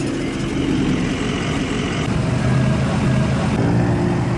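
Engines of lifted pickups and SUVs idling and creeping past in slow street traffic: a steady low engine sound with the rush of traffic over it.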